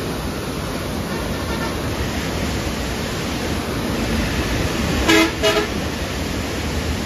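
Flood-swollen river water surging through an open barrage sluice gate, a steady rushing roar of high, fast flow. About five seconds in, a vehicle horn toots twice in quick succession.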